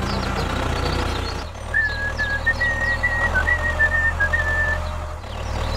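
A whistled tune of short held notes with small slides, starting a little over a second in and stopping about a second before the end, over a steady low drone.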